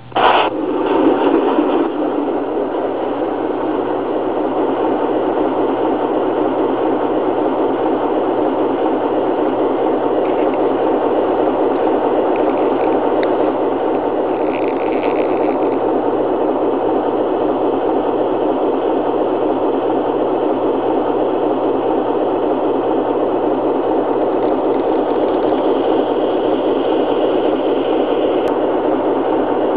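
Original Lionel RailSounds board in a U30C O-gauge model playing a diesel prime-mover sound through the model's speaker: a steady idle, with a brief higher-pitched sound about halfway through.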